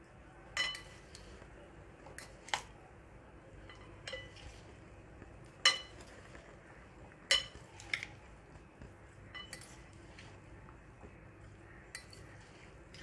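Plastic salad servers tossing a chopped vegetable salad in a bowl: about ten short clinks of the servers against the bowl, irregularly spaced, some with a brief ring.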